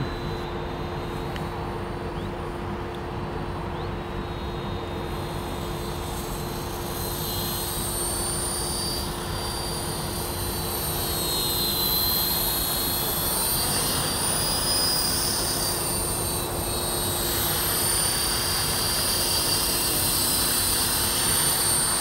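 Esky Honey Bee King 4 electric RC helicopter in flight: a high motor and rotor whine that wavers up and down in pitch over a low steady hum, getting louder as it comes closer.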